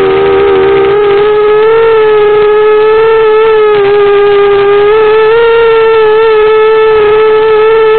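Brushless motors and propellers of an Eachine Racer 250 FPV quadcopter in flight, giving a loud, steady buzzing whine. The pitch wavers slightly and steps up a little about five seconds in as the throttle changes.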